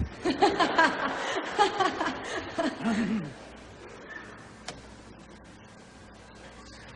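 Laughter and chuckling voices for about three seconds, then quiet room tone broken by a single click.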